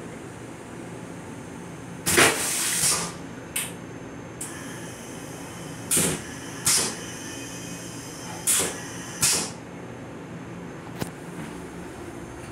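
Steady hum of a Metro-North Comet IV railcar, broken by short loud bursts of noise: a long one about two seconds in, then two pairs a little under a second apart, about six and eight and a half seconds in.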